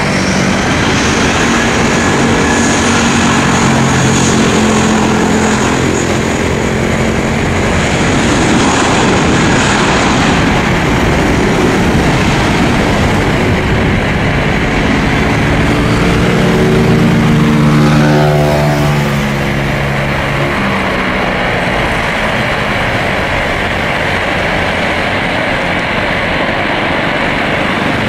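Jet airliner's engines at takeoff power during its takeoff roll, a steady rumble with a high whine. The aircraft passes about two-thirds of the way in, its pitch dropping as it goes by, and the rumble carries on after it.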